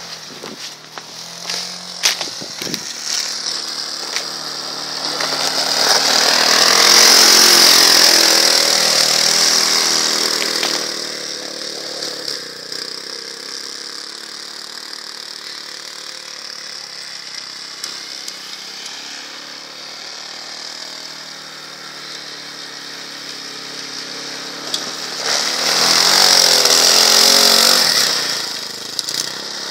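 Leshy 2x2M two-wheel-drive motorcycle's small engine revving as it rides through deep snow. It gets loud as the bike comes close about five seconds in, fades as it rides off, and swells loud again near the end as it passes close once more.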